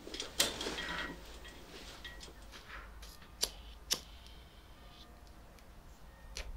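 A hand-held lighter being struck to light a joint: a click about half a second in with a short rush of hiss after it, then two sharp clicks about half a second apart around the middle and one more near the end.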